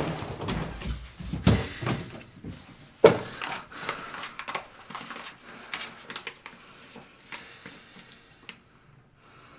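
A few knocks, then a bathroom mirror cabinet door clicking open about three seconds in, followed by soft rustling and ticks as a folded paper is taken out and handled.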